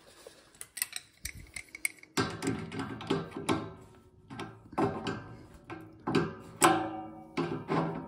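Background music: a run of ringing notes begins about two seconds in. Before it come a few light clicks.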